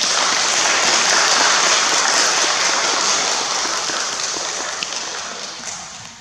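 Audience applauding, loud at first and gradually dying away.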